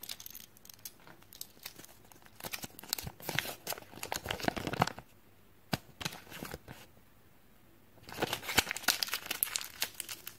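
Crinkling and tearing of thin plastic and foil toy wrappers from Kinder Joy eggs, handled by fingers. It comes in dense bursts of crackle, with a lull of a few scattered clicks in the middle before another long burst near the end.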